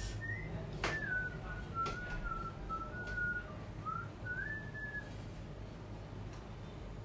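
A man whistling an idle tune, one clear note sliding up and down for about five seconds, then stopping. A light click comes about a second in.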